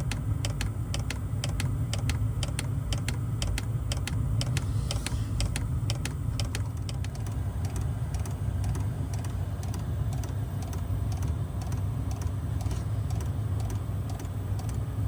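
Diesel heater's fuel dosing pump ticking in a fast, regular rhythm over the steady low hum of the heater running. The ticks are sharp at first and grow fainter after about halfway.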